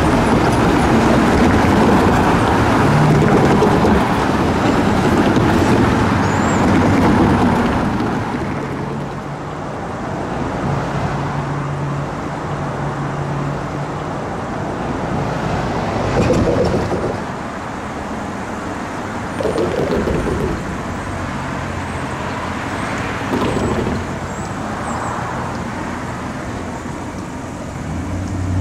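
Vehicle noise: a loud rumble for the first seven seconds or so, then a quieter steady low engine hum with a few short swells as vehicles go by.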